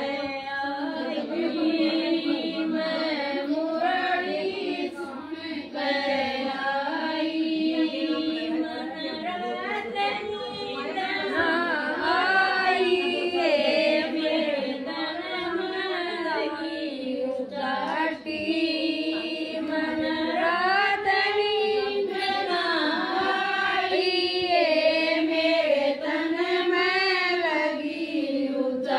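A woman singing a Haryanvi Hindu devotional bhajan in a continuous, gliding melody, with no drum beat.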